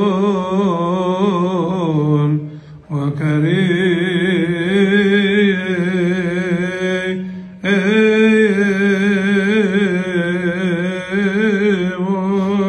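A man's solo voice chanting the deacon's responses of the Coptic Orthodox Divine Liturgy close into a microphone, in long melismatic phrases with wavering ornaments on held notes. It comes in three phrases, with short breaks about two and a half and seven and a half seconds in.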